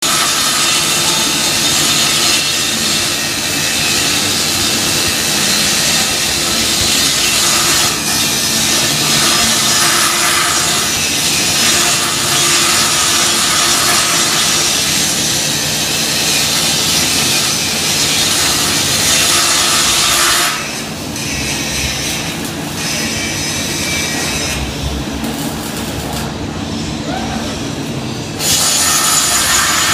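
Robotic welding arc hissing and crackling steadily. About two-thirds of the way through the arc stops and only quieter machine noise remains, with a few low knocks. The arc strikes again near the end.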